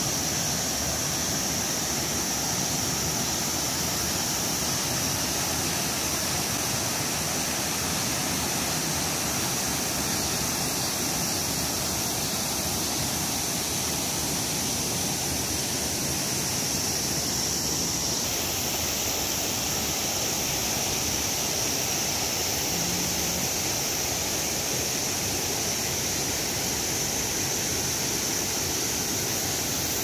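Clear mountain stream running over rocks and small rapids in a steady rush of water, with cicadas droning steadily and high-pitched over it.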